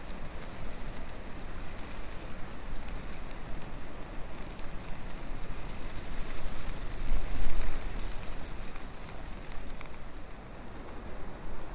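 Steady hiss with a low rumble that swells about seven seconds in and again near the end: wind noise on the microphone.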